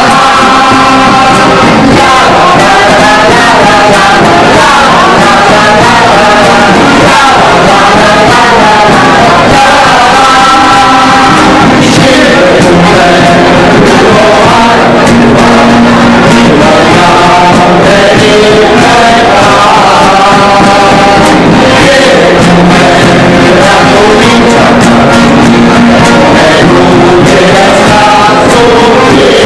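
Mixed choir of men's and women's voices singing a folk song together, continuously and loudly.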